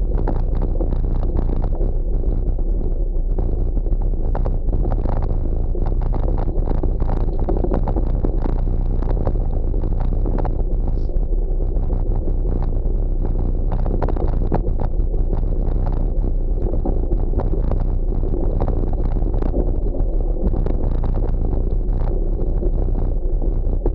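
Wind on the microphone and a gravel bike's tyres rumbling over a rough dirt trail, with many irregular small knocks and rattles from bumps.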